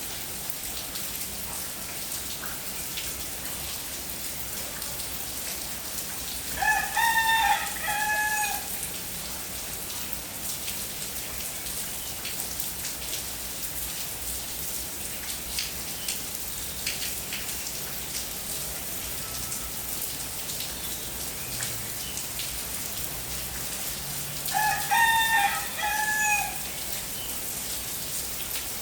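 Steady rain falling, with a rooster crowing twice, once about a quarter of the way in and again near the end.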